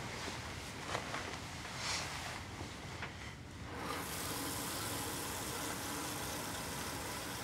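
Soft rustling of bedding with a few light knocks as a man gets out of bed, then about halfway through a steady even hiss starts.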